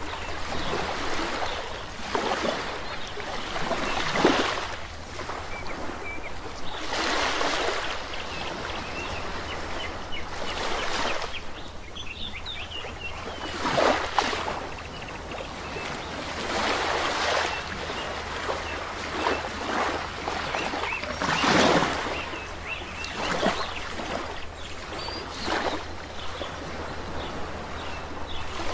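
Sea waves washing onto a shore, coming in as surges of rushing water every few seconds, with small birds chirping faintly over them.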